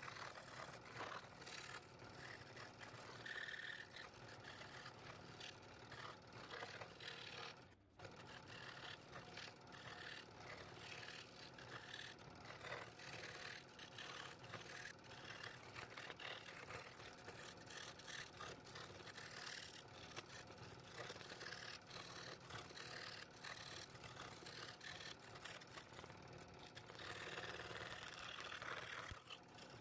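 Scroll saw running steadily as its blade cuts through a board along a pattern line. The sound drops out for a moment about eight seconds in.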